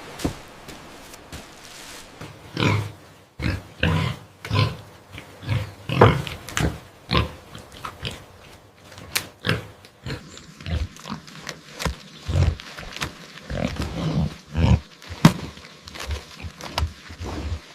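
An animal's short calls repeated about twice a second, beginning about two and a half seconds in.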